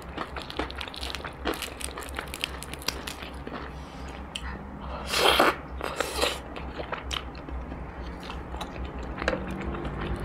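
Close-up crunching bites and chewing of crispy battered fried chicken wings: many sharp crunches, with one louder, longer noisy burst about five seconds in.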